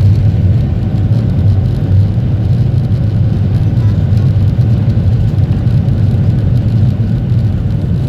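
Boeing 737 MAX 8 taking off, its CFM LEAP-1B turbofan engines running at takeoff power as a steady, loud low rumble.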